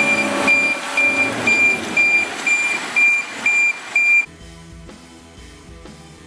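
Back-up alarm of a heavy construction vehicle beeping about twice a second over a diesel engine running. The beeping and engine cut off abruptly about four seconds in, and rock music with guitar and drums takes over.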